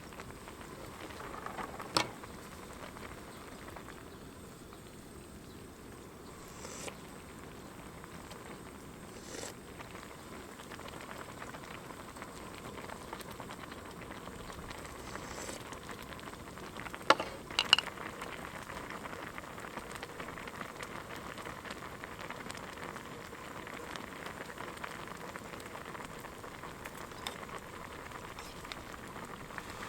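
Food cooking on a camp stove: a steady bubbling sizzle that slowly grows louder, with a few sharp clinks about two seconds in and again around seventeen seconds in.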